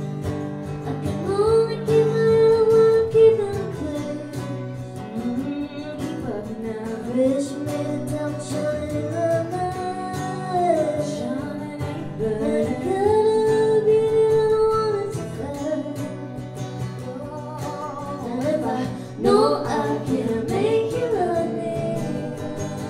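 Live acoustic music: two acoustic guitars played under a woman's singing voice, which holds long notes and slides between them.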